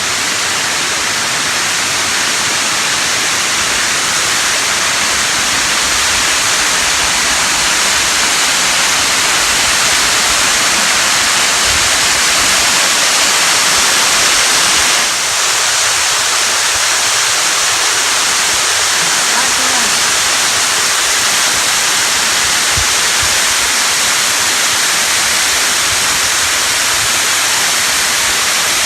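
Rocky Brook Falls pouring steadily into its plunge pool, a loud even rush of falling water.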